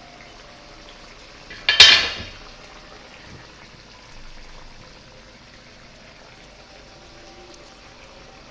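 Chicken and tomato gravy simmering in an aluminium karahi, a steady bubbling. About two seconds in comes one loud, short clatter that dies away within half a second.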